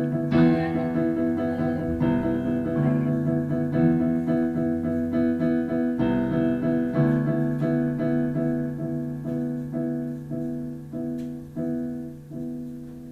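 Piano accompaniment playing sustained chords, the notes coming more sparsely and fading away toward the end.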